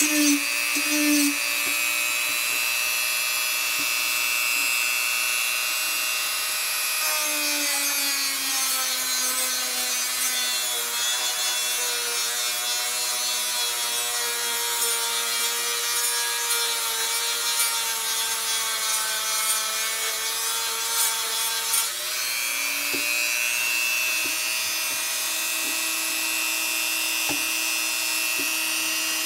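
Hyper Tough 1.5 amp rotary tool running at low speed, sanding and grinding down a small piece of wood with a high motor whine and a rubbing sound. The pitch drops about seven seconds in and comes back up near the end.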